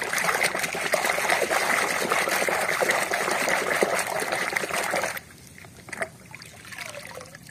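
Water splashing and sloshing in a plastic tub as a hand scrubs a muddy toy under the surface. The splashing stops about five seconds in, leaving only a few faint drips and small knocks.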